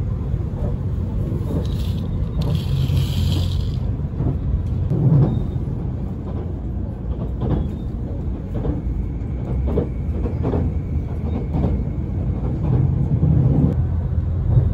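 Cabin noise of a JR HC85 hybrid limited express train running: a steady low rumble, with faint knocks from the wheels on the track and a brief hiss about two seconds in.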